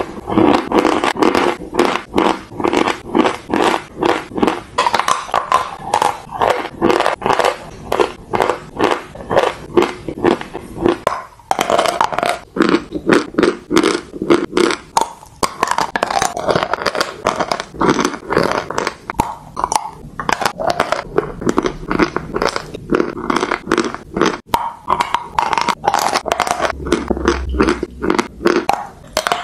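Close-miked biting and chewing of dry eating chalk: dense, crisp crunches, several a second, with a short break about eleven seconds in.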